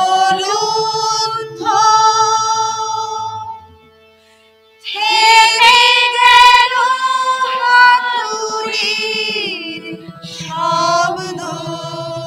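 A mixed choir of men and women, women's voices leading, singing a Bengali song over a harmonium with long held notes. The singing breaks off about four seconds in and comes back louder a second later.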